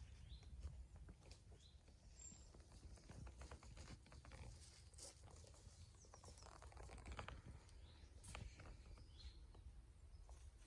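Very quiet woodland sound: faint, scattered crackles and rustles, a few faint bird chirps, and a steady low rumble underneath.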